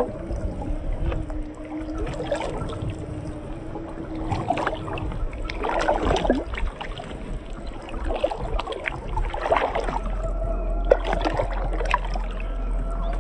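Water sloshing and splashing around a 1/10-scale RC crawler wading deep through a creek, loudest about six seconds in and again near ten seconds. A steady electric-motor whine runs underneath.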